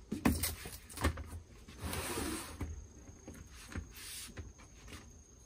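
Handling noise from a plastic-wrapped solar panel and a twin-wall polycarbonate sheet. A few sharp knocks come in the first second or so, then a rustling swish about two seconds in and a shorter one about four seconds in.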